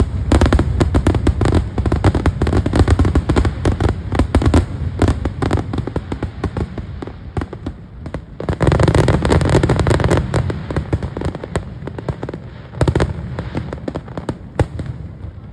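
Fireworks display: aerial shells bursting in a rapid volley of bangs and crackle, dense for the first several seconds and again around nine seconds in, then thinning to scattered bangs near the end.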